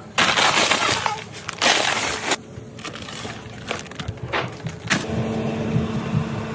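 Two bursts of crinkling, crunching noise, then scattered sharp clicks, then a steady low hum that starts about five seconds in.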